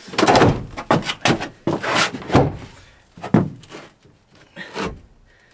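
Plywood camper panels being shoved into a pickup bed: a scraping slide, then a run of wooden knocks and thuds as the piece is seated.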